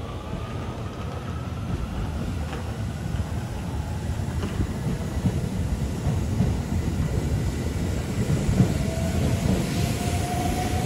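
JR West Thunderbird limited express electric train pulling out along the platform, its wheels rumbling on the rails as it gathers speed. A motor whine slowly rises in pitch and the sound grows louder toward the end.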